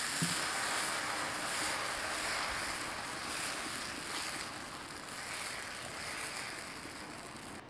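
Dosa batter sizzling on a hot, oiled iron tawa while a ladle spreads it in circles: a steady hiss that slowly fades.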